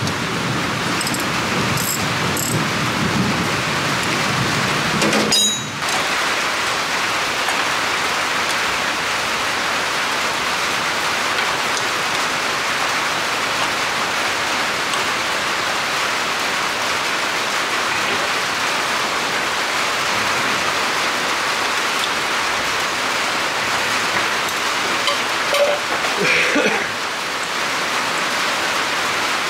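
Steady rain, an even hiss, with one sharp knock about five and a half seconds in.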